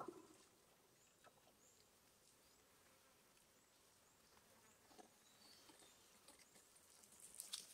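Near silence: faint outdoor ambience with a few short high chirps scattered through, a soft knock at the very start and a brief rustle near the end.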